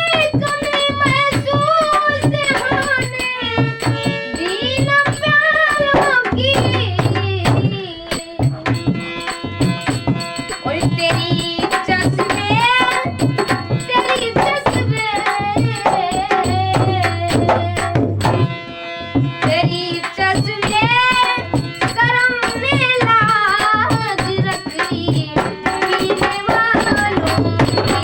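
Ghazal music: tabla drumming in a steady rhythm under a melody that bends up and down.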